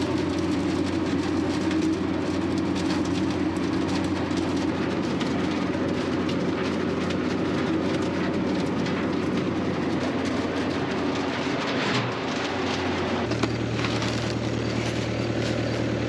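Tractor-drawn mechanical bean picker running in the field: a steady machine drone of engine, cleaning fan and conveyor. About thirteen seconds in, the low hum changes to a different steady note.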